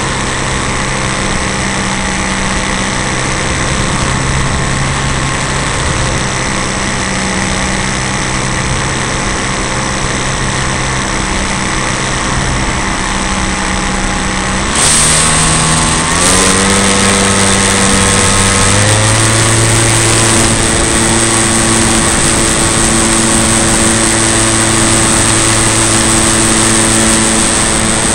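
Radio-controlled model airplane engine and propeller, heard from an onboard camera, running steadily at low throttle, then opened up in two steps about halfway through, its pitch rising and the sound getting louder as the model takes off and climbs.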